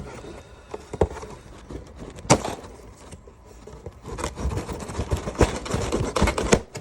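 Cardboard shipping box being handled and worked open: scraping and rustling with sharp knocks, two single knocks early, then a busy run of scraping and tapping in the second half.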